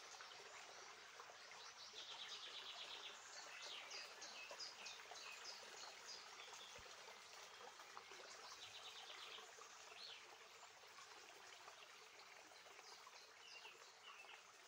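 Faint outdoor ambience: small birds singing in scattered high chirps and short rapid trills over a steady hiss.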